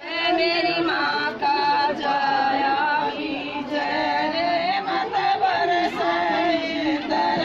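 Group of women singing a traditional song together, unaccompanied, in long held and wavering notes.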